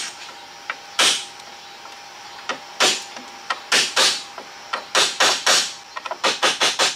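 A hammer tapping on the end of a steel pry bar wedged under a car's roof drip rail molding, working the trim loose. About a dozen sharp taps come at uneven intervals and quicken into a rapid run near the end.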